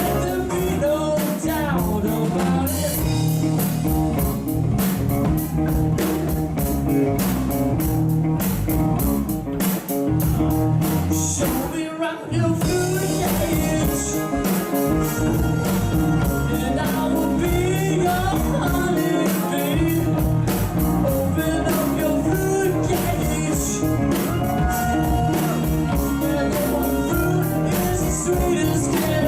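A live band playing a blues-rock song: guitar, bass and drum kit with a singer's voice over them.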